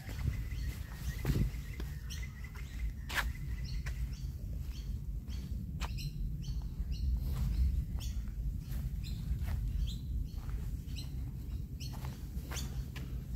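Birds chirping in short, repeated high calls over a steady low rumble, with one sharp click about three seconds in.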